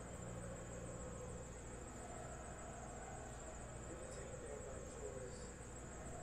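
Quiet room tone: a steady faint high-pitched whine over low electrical hum and hiss.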